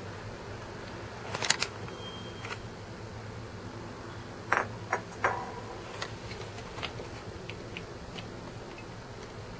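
A cat licking, its mouth and tongue making small sharp clicks: a couple about a second and a half in, then three in quick succession about halfway through, and a few lighter ticks after, over a steady low hum.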